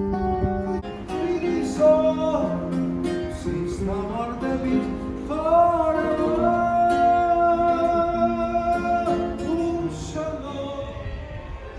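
A singer performing to plucked acoustic guitar, the voice holding one long note through the middle before the melody moves on.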